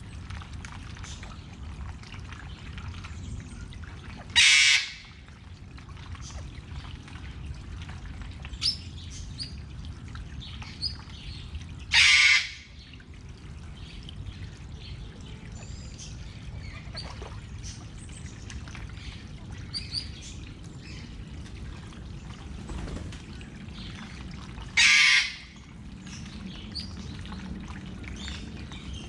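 Steady trickle of running water with small birds chirping faintly, broken three times by a loud, harsh bird call about half a second long.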